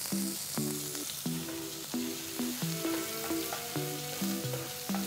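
Chopped onion frying and sizzling in hot oil in a pan, stirred with a wooden spatula, with a few light clicks. Soft background music with short repeating notes plays along.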